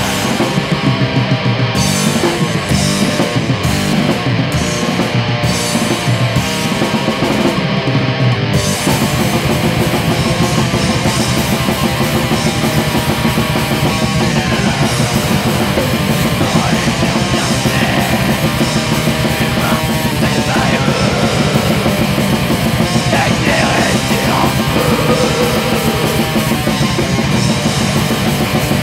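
Black metal track from a lo-fi demo recording: loud distorted electric guitars and drums. About eight seconds in, the stop-start playing gives way to a continuous dense wall of sound.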